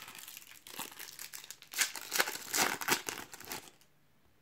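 Panini trading-card packet being torn open and its wrapper crumpled: irregular crinkling and crackling, loudest about two to three seconds in, dying away near the end.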